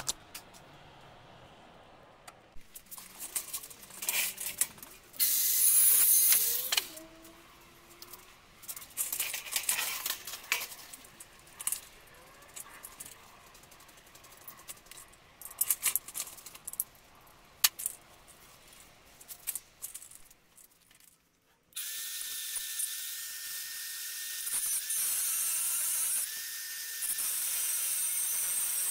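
Scattered knocks and short rattling bursts, then about two-thirds of the way in a Metabo angle grinder starts running steadily with a high whine and cuts into metal, its pitch dipping twice under load.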